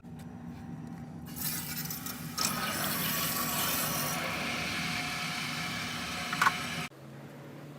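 Water running, a steady rush that gets louder about two and a half seconds in and cuts off suddenly near the end.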